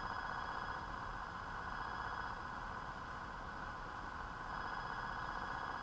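Homebrew SSB transceiver's receiver hiss from its speaker: a steady, narrow rushing noise with a few faint high whine tones. It is heard while shielding the rig's OLED display against the interference the display puts into the receiver, which shielding takes away.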